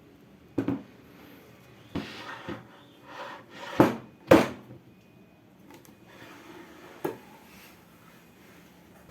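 Wooden pieces being handled: a few sharp knocks with short scraping and rubbing between them, the loudest two knocks close together about four seconds in.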